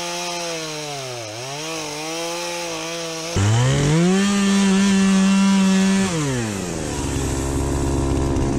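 Chainsaw cutting into a soft, rotten tree trunk to hollow out a pocket in it. The engine bogs down under load about a second in, recovers, then runs at high speed before slowing to a lower, steady speed near the end.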